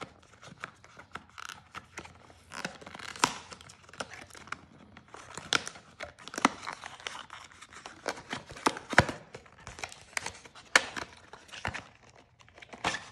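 Clear tape seal being peeled from a small paperboard box and the box opened by hand: crackling, tearing and sharp snaps and clicks of card, the loudest about nine and eleven seconds in.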